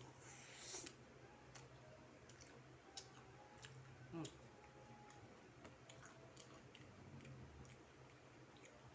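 Faint close-up chewing of battered fried chicken, with scattered soft mouth clicks and a brief rustle just after the start.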